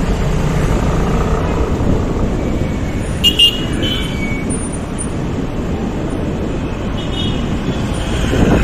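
Steady low engine and road rumble of a motorcycle ride, with two short vehicle-horn beeps about three seconds in.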